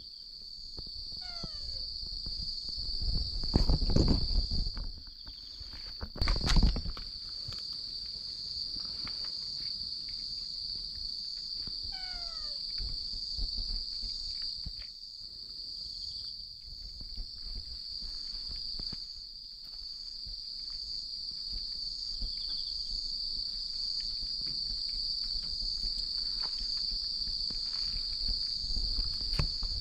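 Steady chorus of singing insects such as crickets, a constant high-pitched trill. Two dull low rumbles come about four and six and a half seconds in, and two short falling calls are heard, one early and one about twelve seconds in.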